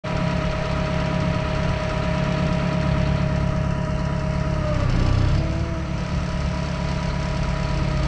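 Gehl V400 skid steer's diesel engine running steadily at idle, with a steady whine on top and a brief change in pitch about five seconds in.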